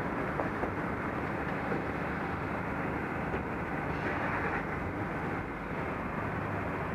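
Steady rumble of city street traffic heard through an action camera's microphone, with a brief brighter hiss about four seconds in.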